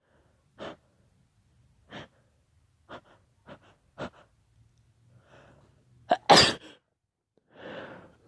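A person sneezing: a run of short, sharp breaths about a second apart builds up to one loud sneeze about six seconds in, followed by a breathy exhale.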